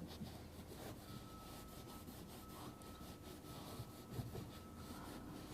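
Faint rubbing and scuffing of a damp rag wiped around a freshly soldered pipe fitting, cleaning off the excess flux.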